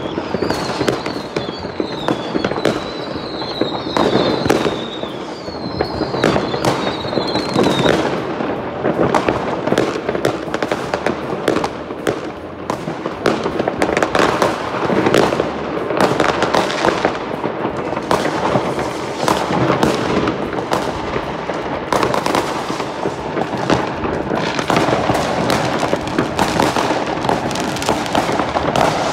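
Many fireworks and firecrackers going off at once across a neighbourhood: a continuous dense crackle of bangs, near and distant. Whistling rockets squeal through the first eight seconds or so.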